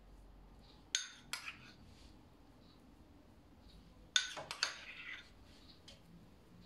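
A metal utensil clinking against a small bowl and a baking tray as butter is spread on rolled-out dough sheets. There are two clinks about a second in, then a quick run of clinks and scrapes about four seconds in.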